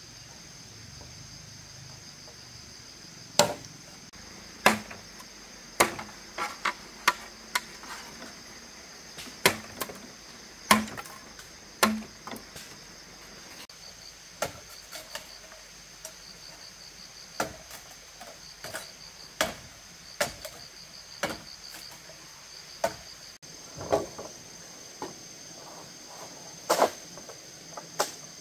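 Irregular sharp knocks of a hand tool striking bamboo poles, about one every second or two, some in quick pairs. Under them runs a steady high drone of insects.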